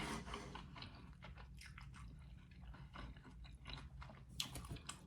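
A person chewing food close to the microphone: faint, wet mouth clicks, with a few louder ones about four and a half seconds in.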